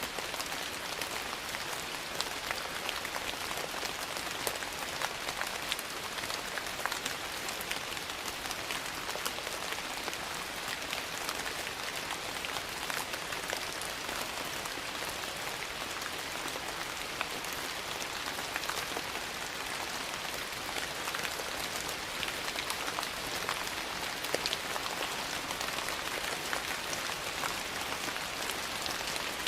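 Steady rain falling: a dense, even hiss with many small sharp ticks scattered through it.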